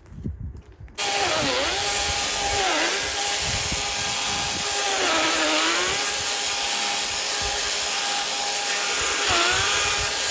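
Battery-powered chainsaw starting up about a second in and running with a steady whine. Its pitch dips several times as the chain slows under load cutting through wood.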